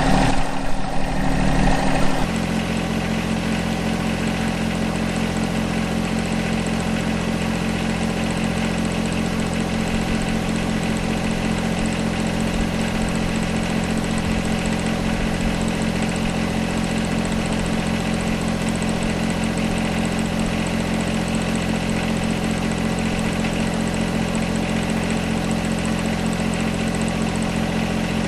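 John Deere 1025R compact tractor's three-cylinder diesel running at low engine speed, louder and uneven for about the first two seconds, then settling into a steady note.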